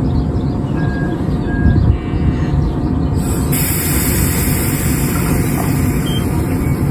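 A JR 115 series electric train rolling slowly along a station platform, with a loud steady low rumble. Two short high beeps sound about a second in, and a hiss of high-pitched noise comes in suddenly about three and a half seconds in and carries on.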